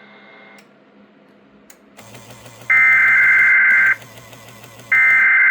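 NOAA Weather Radio SAME (Specific Area Message Encoding) data burst, the screeching digital tones of an emergency alert header. It sounds twice, each burst about a second long, about three seconds in and again near the end, over faint radio hiss. It marks the start of a new alert.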